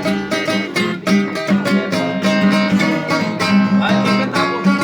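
Acoustic guitar (violão) being strummed in a steady rhythm, its chords ringing between strokes.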